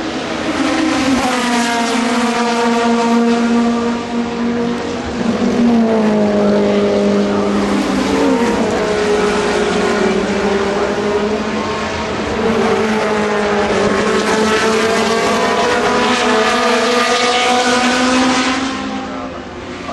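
Several racing cars' engines running loud through a corner, overlapping, their pitches rising and falling as they brake, shift down and accelerate away.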